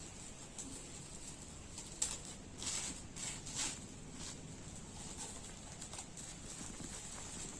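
Gift packaging being handled and opened: a sharp click, then a few short crinkling rustles.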